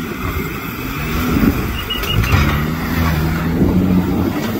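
Off-road competition vehicle's engine revving under load. Its pitch climbs about two seconds in, then holds steady.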